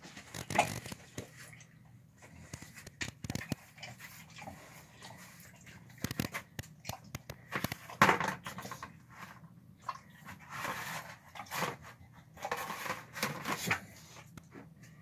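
A boxer–pit bull mix dog eating out of a bowl: irregular wet chewing and mouth smacks, with scattered sharp clicks.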